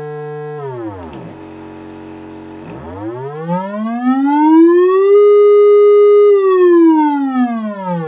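Triangle-wave test tone from a signal generator, played through a bare woofer driven by a Velleman K8060 discrete power amplifier and swept in pitch. A steady low tone drops to a deep rumble about a second in, then glides up to a louder, higher tone held around the middle, and slides back down near the end.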